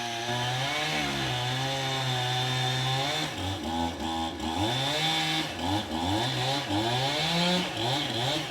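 Two-stroke chainsaw cutting firewood, running steadily at high speed for about three seconds, then revving up and down repeatedly, about twice a second, before it drops away at the very end.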